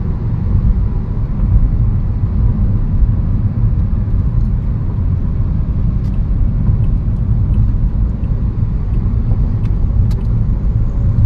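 Steady low rumble of road traffic, with a few faint ticks in the second half.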